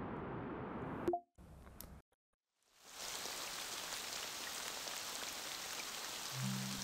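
Apple Vision Pro immersive-environment ambience: a soft steady hiss, broken about a second in by a short interface chime and a brief dropout as a new environment is picked. A fuller, brighter steady hiss then fades in, the ambient sound of the Mount Hood lake environment.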